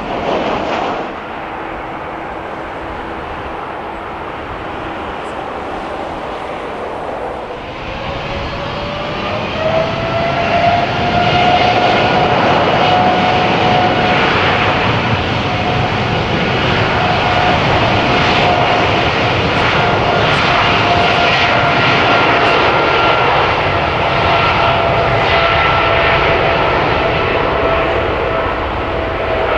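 Boeing 787 jet engines running with a loud rumble. About a quarter of the way in, a whine rises in pitch and loudness and then holds steady as the engines spool up.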